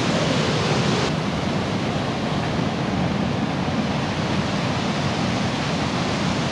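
Mountain waterfall: water pouring down a smooth rock chute in a loud, steady rush. The hiss thins a little about a second in.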